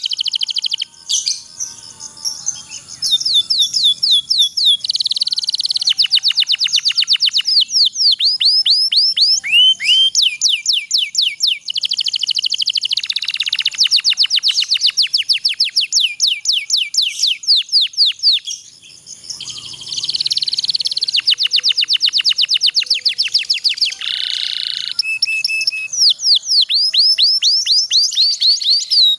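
Domestic canary singing a long, continuous song of rapid repeated trills and rolls, fast sweeping notes in runs of several seconds with brief pauses between them.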